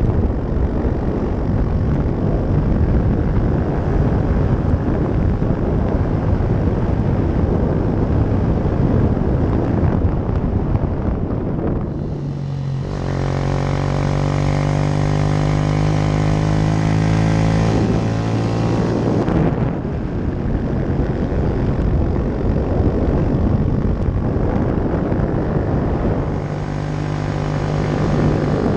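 Yamaha YS 125 single-cylinder four-stroke engine with a Leovince exhaust running at steady, moderate throttle while riding. Wind noise on the microphone covers much of the engine, which comes through clearly as a steady note for several seconds from about twelve seconds in, and again near the end.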